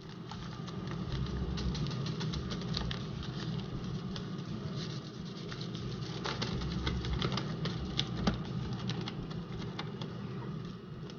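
Seasoning packet shaken and crinkled over raw chicken wings in a plastic bowl, with many light crackles and taps and one sharper tap near the end. Under it runs the steady hum of an Instant Pot air fryer lid's fan, running while it cooks.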